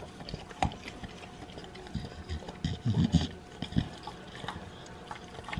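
A mother dog licking a newborn puppy: irregular wet licking and smacking sounds with soft clicks, and a towel rubbed over the wet puppy.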